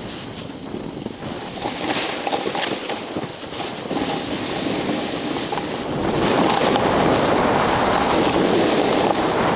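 Wind buffeting the microphone during a fast descent on snow, with the scrape of edges sliding over hard snow; the rushing noise grows louder from about six seconds in.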